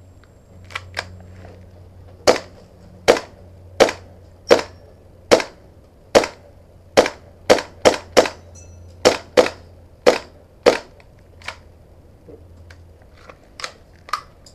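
Airsoft pistol firing about fifteen sharp shots, roughly one a second at first, then in quicker runs of three or four near the middle. A couple of faint clicks come before the first shot and a few after the last.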